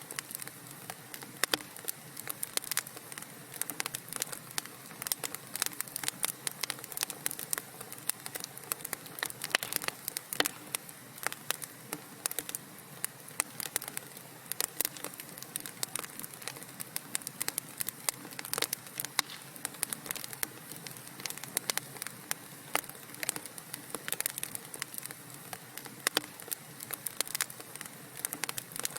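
Wood fire crackling in a fireplace: a steady hiss dense with irregular sharp pops and snaps.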